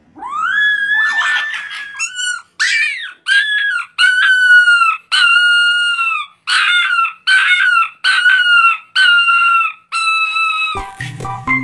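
A fluffy black-and-white puppy howling: about a dozen high howls in a row, each held briefly and dropping in pitch at the end. Organ music comes in near the end.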